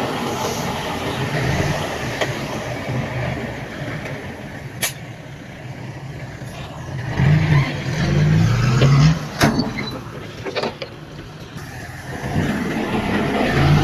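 Heavy earthmoving machinery's engine running and revving up and down under load, with a few sharp metallic clanks around the middle.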